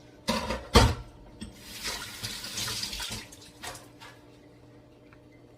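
Kitchen tap water running into a sink while a hairtail fish is rinsed and scrubbed clean. It opens with two sharp knocks, the water runs for under two seconds, and there is one more knock before it goes quiet.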